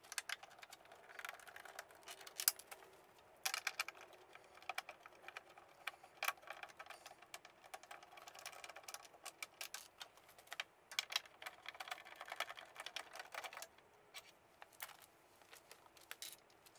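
Irregular small metallic clicks and taps as screws are worked out of a pool heater's sheet-metal cover with a 5/16 driver.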